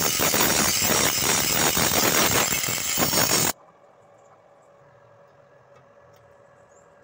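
Angle grinder with an abrasive disc grinding down a weld bead on a square steel tube joint: a loud, steady, hissing grinding noise. It cuts off abruptly about three and a half seconds in, leaving only faint background sound with a few light ticks.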